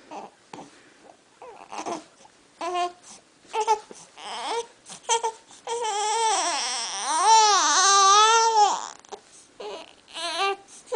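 Baby fussing in short whimpering cries that build to one long, wavering cry of about three seconds midway, followed by a few more short whimpers near the end.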